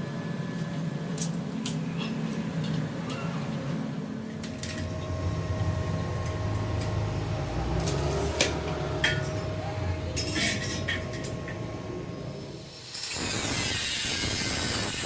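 Scattered light metal clinks and knocks over a steady low hum, as steel pieces are handled during balcony railing work. Near the end it changes to a brighter hissing.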